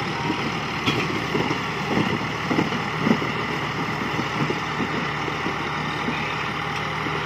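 Farm tractor's diesel engine running steadily as it pulls a heavily loaded sugarcane trailer. A few knocks stand out between about one and three seconds in.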